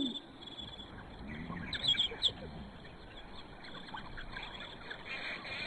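African wild dogs making faint high-pitched twittering and squeaking calls, with a short cluster of chirps about two seconds in.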